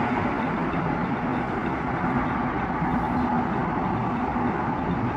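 Steady city road traffic noise: cars running along the street with a constant low hum, and no distinct single event.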